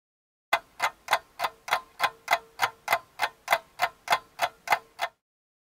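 Clock ticking sound effect: about sixteen evenly spaced sharp ticks, about three a second, that stop suddenly about five seconds in.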